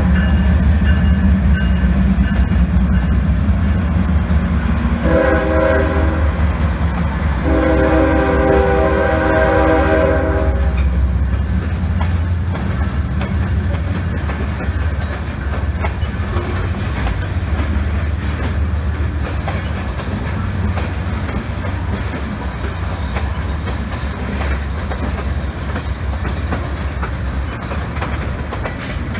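Freight cars of a moving CSX train rolling past with a steady rumble and wheel clatter, fading slowly as the train draws away. The locomotives' air horn sounds twice about five seconds in: a short blast, then a longer one.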